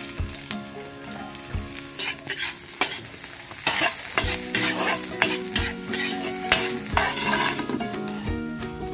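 Garlic sizzling in oil in a metal wok over a wood fire while a metal spatula stirs it, with repeated scrapes and clinks of the spatula against the pan.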